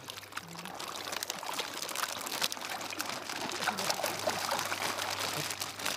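Water sloshing and splashing in a shallow tub as hands work a large koi into a plastic bag under the water, growing louder over the first second or so.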